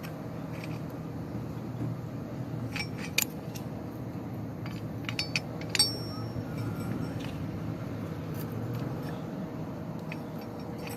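Metal tent-frame parts clinking and tapping several times, the loudest clinks about 3 and 6 seconds in, over a steady low hum.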